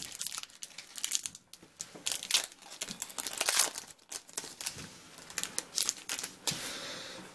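A 2015-16 Upper Deck SP Authentic hockey card pack being torn open by hand, its wrapper crinkling and rustling in irregular bursts.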